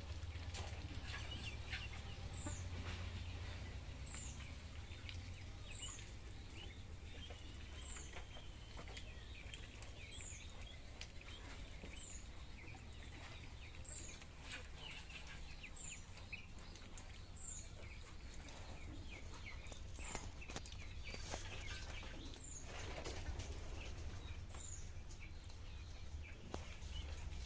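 Ducklings peeping faintly over a steady low rumble, with a short high chirp repeating about every two seconds.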